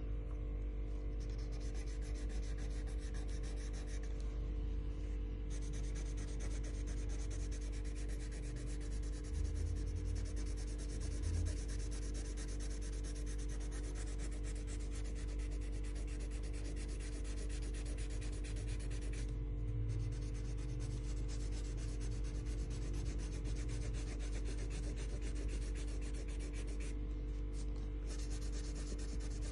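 Colouring strokes on paper: a colouring tool scrubbing rapidly back and forth, pausing briefly a few times, over a steady low electrical hum.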